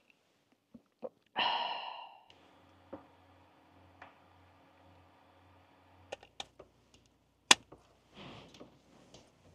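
Induction cooker running with a steady, pulsing low hum while a spoon stirs a pot, giving a couple of light knocks. After a brief loud sound about one and a half seconds in, sharp clicks and one loud snap come near the end, with a rubbing of the cord as an electric sandwich pan is set up and plugged in.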